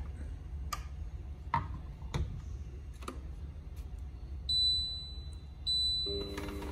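A few light clicks and knocks, then the Tefal ZC420 slow juicer's touch control panel gives two short high beeps about a second apart. Near the end its motor starts with a steady hum.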